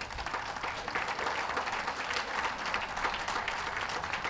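An audience applauding, many hands clapping at once at a steady level.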